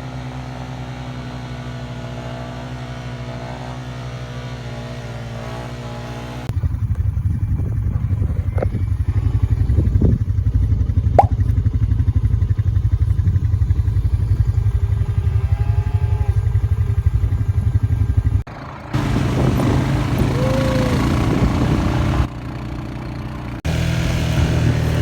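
Four-wheeler (ATV) engine running while being ridden, in several clips with abrupt cuts. About six seconds in it becomes louder and rougher.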